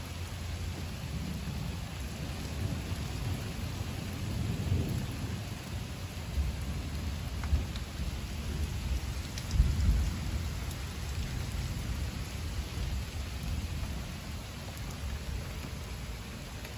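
Heavy rain falling steadily, with low rolling thunder that swells twice and is loudest about ten seconds in.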